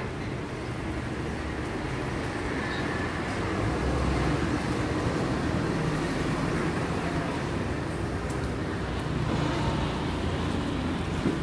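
Street traffic noise: a steady rumble of passing vehicles, growing a little louder a few seconds in.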